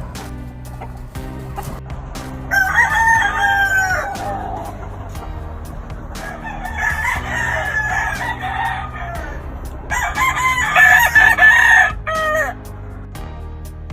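Gamefowl roosters crowing: three long crows in turn, the last ending about a second before the end, over background music.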